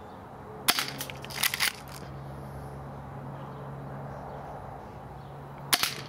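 Daisy Airstrike 240 spring airsoft pistol fired twice: a sharp snap less than a second in and another near the end, with a short run of clicks and rattles just after the first shot as the slide is pulled back to cock it.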